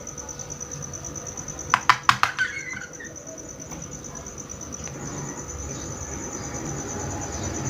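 Small plastic toy kitchen pieces handled, giving a quick run of about five sharp clicks about two seconds in, over a steady high-pitched whine and low hum.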